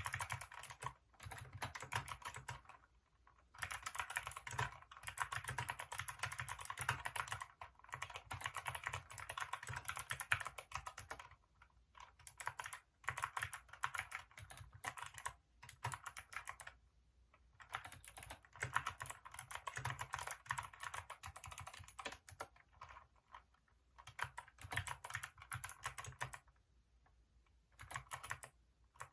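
Fast typing on a Hacker K611 keyboard with Kailh optical switches: quick keystrokes in runs of several seconds, broken by four or five short pauses.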